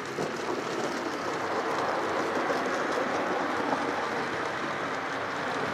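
Model railway train, a locomotive with a rake of coaches, rolling along the track close by: a steady rolling rumble that swells a little just after the start as the train comes near.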